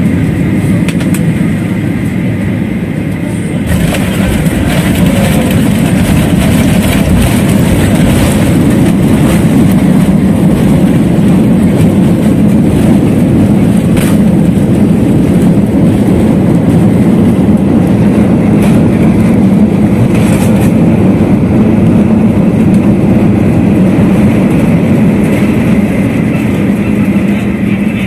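Jet airliner cabin noise during the landing roll: engine and wheel noise with a steady hum. About four seconds in the noise jumps sharply louder as the engines spool up, typical of reverse thrust after touchdown, and it holds steady before easing near the end.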